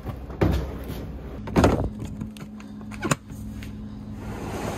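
Gear being loaded into a pickup truck bed: plastic totes and a tackle box knocking and scraping on the bed, three knocks in all, the loudest about a second and a half in. Under them runs the steady low hum of the truck idling.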